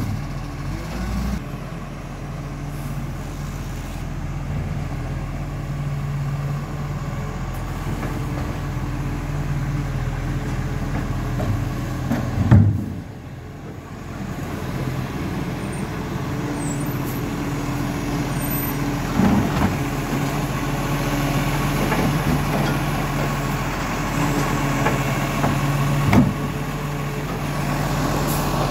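Side-loading garbage truck's diesel engine running steadily, with a few sharp clunks; the loudest comes about halfway through.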